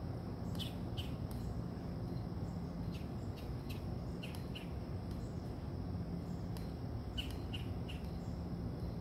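Outdoor insect and bird ambience: a steady high insect drone with short bird chirps in small groups of two or three, over a steady low rumble.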